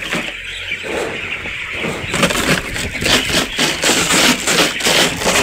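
A plastic container banged rapidly and repeatedly to drive a flock of broiler chickens along the shed.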